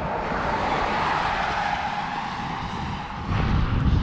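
Steady outdoor rushing noise, then loud low wind buffeting on the microphone from a little over three seconds in.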